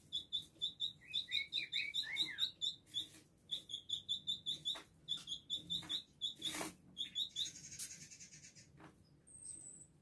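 Male village indigobird singing a fast run of short high chipping notes, about four or five a second. The run is mixed with a few lower down-slurred notes early on, one sharp click about two-thirds through, a buzzy phrase and a thin high whistle near the end.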